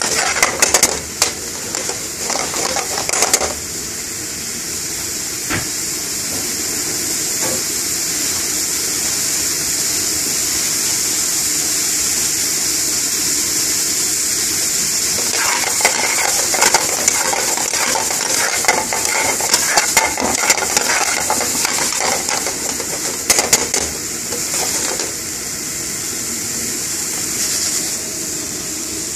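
Cauliflower in curry gravy sizzling in an aluminium frying pan on a gas flame. A metal spoon scrapes and clatters against the pan as it is stirred for the first few seconds and again from about 15 to 25 seconds in. In between there is only steady sizzling.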